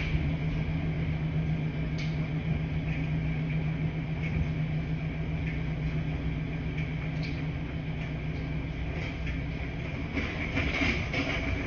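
Washing machines running in a laundry room: a steady low hum and rumble, with a few faint clicks and knocks.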